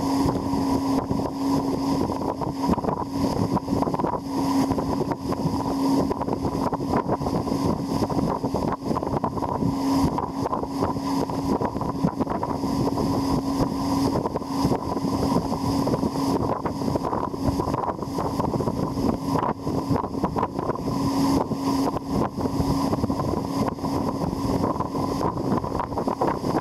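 Motorboat engine running steadily at speed, towing a banana boat, with wind buffeting the microphone.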